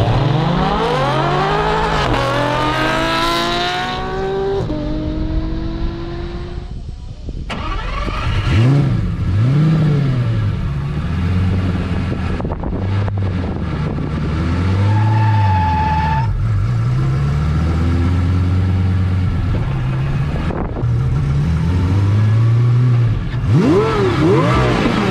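A car launching hard, its engine pitch climbing steadily for the first few seconds. After that, a twin-turbo Lamborghini Gallardo Superleggera's V10 is revved up and down over and over, the pitch rising and falling every second or two.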